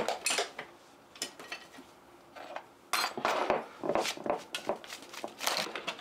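Irregular clinks and knocks of hard metal parts being handled and set down, coming in several clusters with a busier run in the middle.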